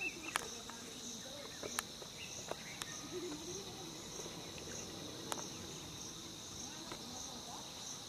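A steady chorus of insects, likely crickets, trilling in a continuous high buzz. A few sharp clicks stand out over it, the first within the first second and the last about five seconds in.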